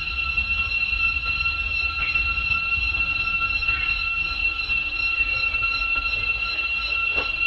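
Steady high-pitched drone of forest insects such as cicadas, with a low rumble beneath. A brief falling squeal near the end.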